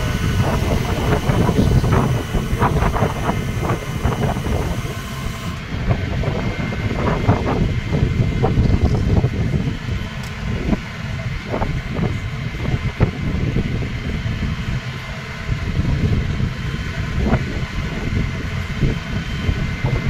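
Flatbed tow truck running with a low engine rumble while a car is loaded onto its tilted bed, broken by irregular metallic clanks and rattles from the bed and winch gear.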